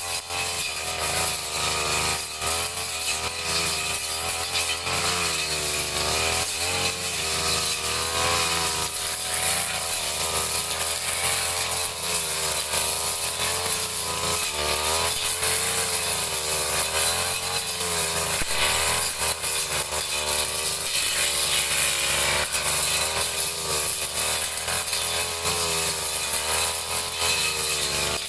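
Brush cutter engine running hard as it cuts grass, its pitch wavering up and down continuously.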